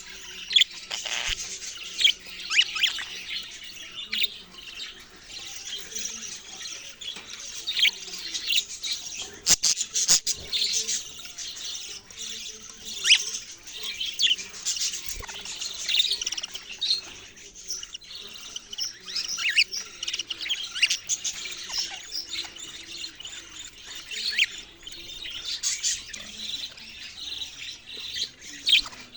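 Budgerigars chirping and chattering: a busy, continuous run of short high chirps and squeaks.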